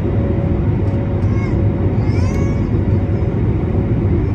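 Steady cabin roar of an Airbus A321neo climbing after takeoff, heard from a seat over the wing: engine and airflow noise from its Pratt & Whitney geared turbofans at climb power. Two short, high gliding whines about one and two seconds in rise over the roar.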